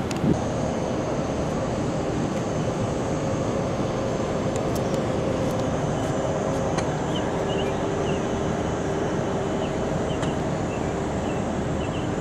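Steady rumbling running noise of a vehicle in motion, with a faint hum, a single thump just after the start and faint short chirps in the second half.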